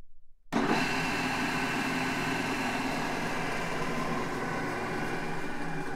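Large drill press motor starting abruptly about half a second in and running steadily: a hum of several steady tones over a hiss.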